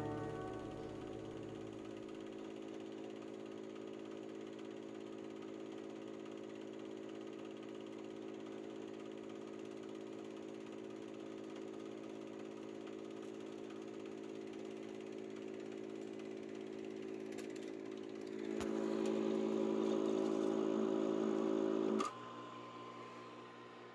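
Super 8 film projector running with a steady motor whir and hum. It gets louder about eighteen seconds in, then a click about twenty-two seconds in and the sound drops to a faint hum as it is switched off.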